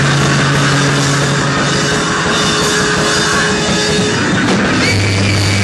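Live noise-rock band playing loud: a dense wall of distorted noise over a drum kit, with a steady low drone underneath. About five seconds in the drone drops lower and a high steady tone comes in.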